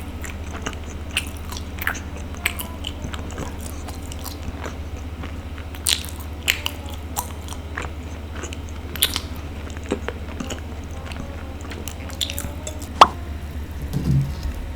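Close-miked chewing and biting of a sticky glutinous rice ball: irregular wet clicks and smacks, with a sharper snap near the end, over a steady low hum.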